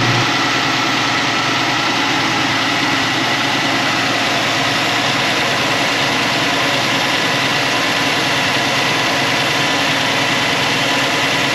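1979 VAM Gremlin X's 258 cubic-inch straight-six engine idling steadily.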